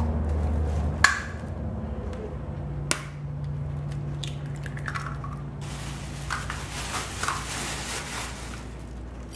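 Eggs being cracked against the rim of a mixing bowl, with two sharp cracks about two seconds apart. A plastic grocery bag then crinkles for a few seconds as the shells are dropped into it.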